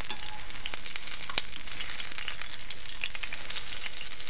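Battered eggplant fritters sizzling in hot oil in a frying pan: a steady high hiss with scattered crackles and pops, one louder pop about a second and a half in.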